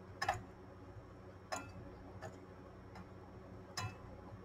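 Light handling clicks and taps, four in all and irregularly spaced, as fingers and a hand tool touch the parts and wiring inside an opened stereo receiver's chassis. A faint steady hum runs underneath.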